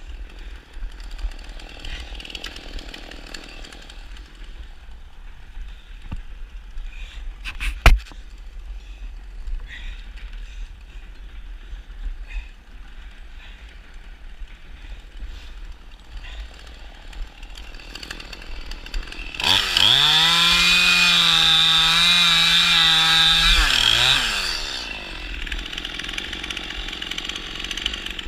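Chainsaw engine revving up quickly to full throttle, holding a steady high note for about four seconds, then dropping back, about two-thirds of the way in. Before that there is only low background noise and a single sharp knock.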